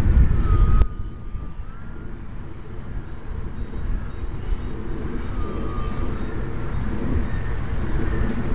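Wind buffeting the microphone with a steady low rumble, loudest in the first second. Over it, the faint whine of a small RC plane's motor wavers up and down in pitch, near the start and again about five to six seconds in.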